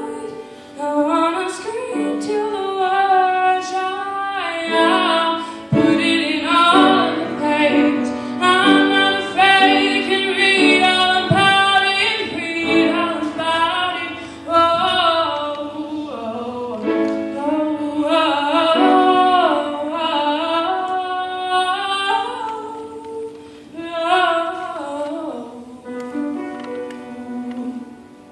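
A woman singing a slow ballad while accompanying herself on a grand piano, her voice and the piano dying away near the end as the song closes.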